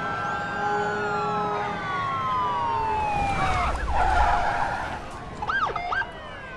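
Several police car sirens wailing at once, their tones overlapping and slowly falling in pitch. A louder low rumble comes in about three and a half seconds in, and a few short siren whoops sound near the end.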